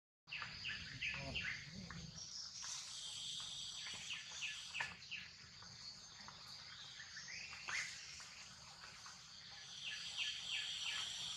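Forest ambience: a steady high insect drone, with short falling bird calls in quick series, a run of them about a second in, again around four to five seconds in, and near the end.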